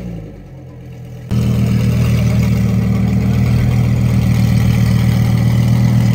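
Lamborghini Huracán's V10 engine idling, a loud, steady drone that cuts in suddenly about a second in after the tail of a rev dies away.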